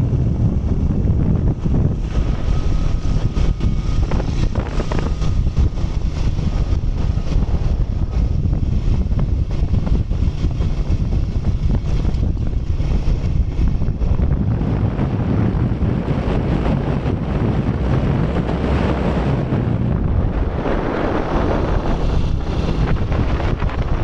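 Heavy wind buffeting the microphone of a moving motorcycle, with the 2007 Honda CG 125's single-cylinder four-stroke engine running underneath. The rushing gets stronger in the last few seconds.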